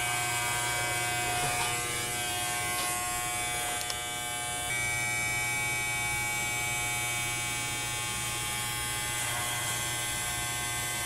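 Corded electric hair clippers buzzing steadily as they shave long hair off a head, with a slight change in tone a little under halfway through.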